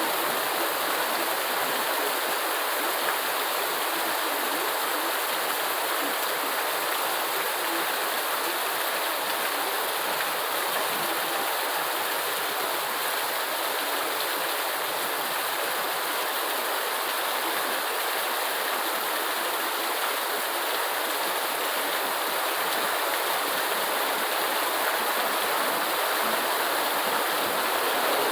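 Steady rain falling, an even, unbroken hiss with no separate drops, thunder or other sounds standing out.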